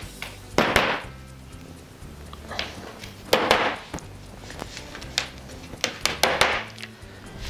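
Small hammer tapping 8 mm wooden dowels into pre-drilled holes in a cabinet side panel. The taps come one at a time, with three louder strikes about a second in, in the middle and near the end. Each dowel is struck until the sound shows it has gone fully home. Background music runs underneath.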